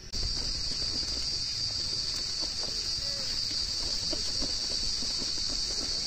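A steady, high-pitched chorus of forest insects that cuts in at the start and carries on without a break, over a low rumble.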